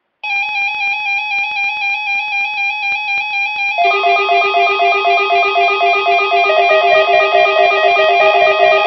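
Electronic weather-radio receiver alarms sounding a rapid warbling beep. About four seconds in, a second, lower-pitched alarm joins the first and the sound grows louder.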